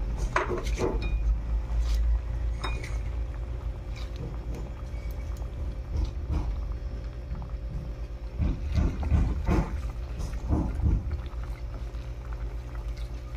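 Kangkong leaves being pushed by hand into a stainless pot of simmering sour soup, with leafy rustling, liquid sloshing and a few knocks of a spatula stirring against the pot, over a steady low hum.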